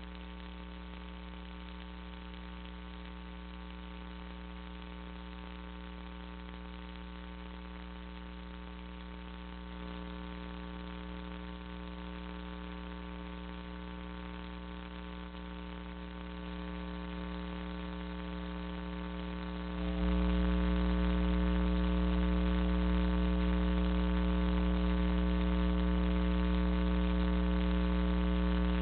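Steady electrical mains hum with a buzzy stack of overtones. It gets louder in small steps about ten and sixteen seconds in, then jumps louder about twenty seconds in.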